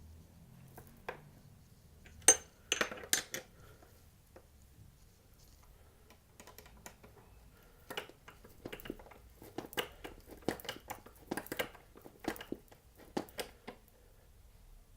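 Metal clicks and clinks of skateboard truck hardware being handled and tightened with a tool. A loud cluster of clicks comes about two seconds in, and a quicker run of clicks fills the second half.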